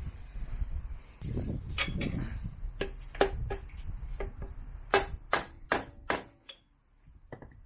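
Sharp metal clinks and knocks, about eight in a few seconds, each with a short ring, over low handling rumble, as the BMW R1200GS drive shaft's universal joint is worked onto the gearbox output splines.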